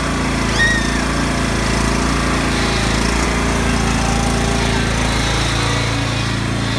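Lawn mower engine running steadily at an even speed. A short high-pitched squeak about half a second in.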